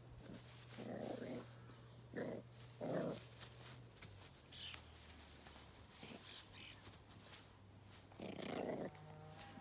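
Terrier puppy growling in four short bursts, one about a second in, two more around two and three seconds, and one near the end, while it tugs at a garden hose.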